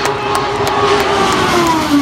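IndyCar's twin-turbocharged V6 at full speed, holding one steady note and then falling in pitch near the end as the car passes.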